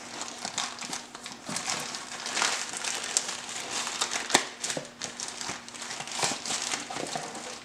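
Crinkling and rustling of the wrapping around a new toolmaker's vise as it is dug out of its small cardboard box by hand, with scattered light ticks and one sharper click a little past halfway.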